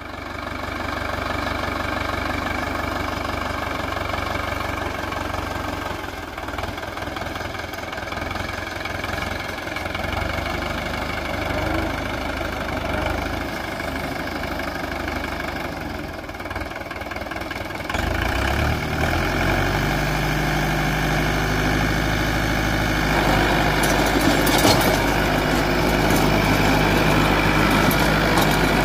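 Force Balwan 500 tractor's 2596 cc four-cylinder direct-injection diesel engine running steadily under load as it drives a rotary tiller through dry, cloddy soil. The sound grows louder and its tone shifts about eighteen seconds in.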